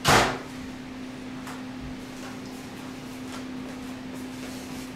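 A sudden loud rush of noise that dies away within half a second. Then a few faint clicks over a steady low hum.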